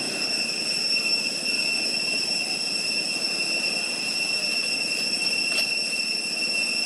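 Cicadas droning in one steady high-pitched whine, with a faint click about five and a half seconds in.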